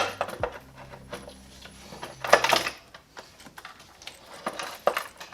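Metal clinking and clattering as hand tools and truck parts are handled: a sharp clink at the start, a louder rattle about two and a half seconds in, and a few lighter clicks near the end.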